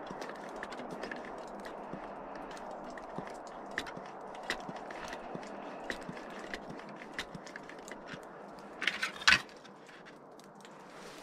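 Handling of a camp stove and its red fuel bottle in snow: scattered sharp clicks and crunches over a steady low hiss, with a short loud crackling burst about nine seconds in.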